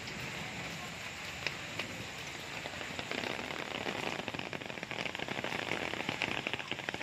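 Heavy rain falling, an even hiss with a dense patter of drops that grows louder about three seconds in.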